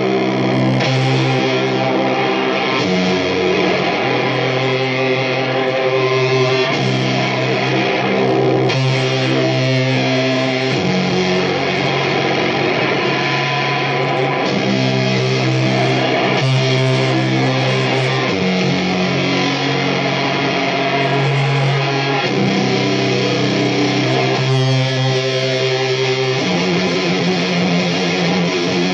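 Distorted electric guitar playing a slow, droning riff of long held chords that change every two to three seconds.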